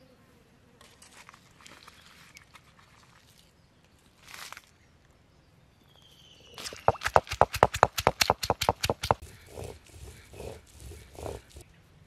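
Soaked dried red chillies crushed with a stone roller on an ammi, a flat grinding stone. Faint scraping and handling first. Midway comes a fast run of hard knocks, about seven a second for about two seconds, then a few slower strokes as the chillies break down into paste.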